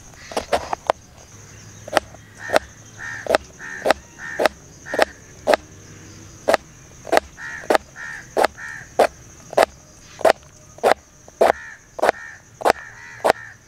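Kitchen knife chopping cabbage on a plastic cutting board: steady sharp chops, about three every two seconds. Crows caw in three short runs behind the chopping.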